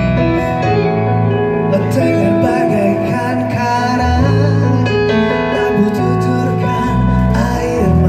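Live rock band playing, with electric bass and electric guitar under a singer's vocals.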